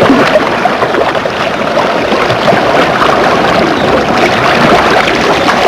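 Water splashing and rushing around sea kayaks being paddled out to sea.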